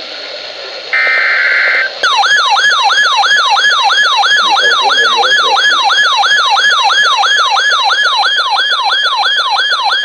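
About a second in, a brief buzzy burst of EAS/SAME digital data tones sounds over radio hiss. From two seconds in, an electronic siren yelps rapidly in a fast repeating wail, about three sweeps a second.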